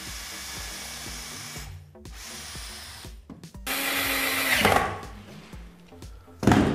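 Cordless drill driving wood screws into a wooden bed frame in three short runs, the last and loudest about four seconds in. A sharp knock near the end.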